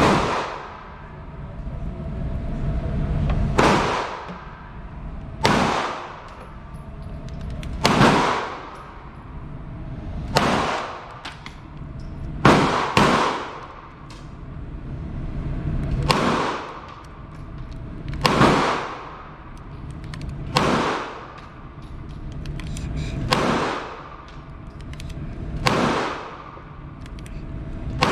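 Gunshots fired at a slow, steady pace, about a dozen in all, one every two to three seconds, each sharp crack followed by a short ringing echo.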